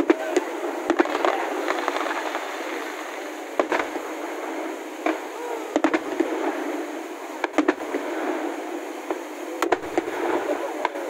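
Fireworks display bursting: sharp, irregular bangs every second or two over a steady background hiss.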